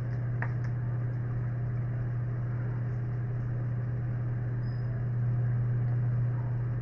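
Steady low electrical hum from a faulty microphone and recording setup, with a faint click about half a second in. It is the humming that the lecturer blames on his new collar mic.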